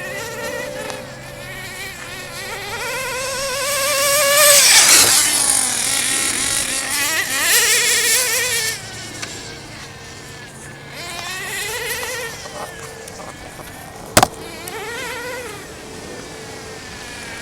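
A radio-controlled car's motor whining and revving up and down as the car is driven, swelling loudly as it passes close twice about a third of the way in. There is one sharp crack near the end.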